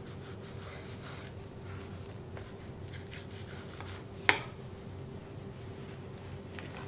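Chef's knife slicing silver skin off a raw flank steak on a wooden cutting board: faint scraping and squishing as the blade slides along the meat and the strip is pulled away, with one sharp tap a little past the middle.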